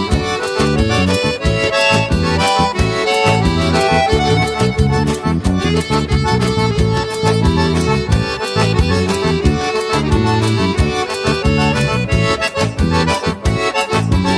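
Instrumental music led by an accordion over a steady, even beat, with no singing.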